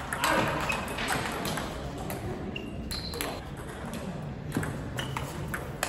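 Table tennis ball in a rally: sharp clicks as it is struck by the rubber-faced bats, and short ringing pings as it bounces on the table, several times over.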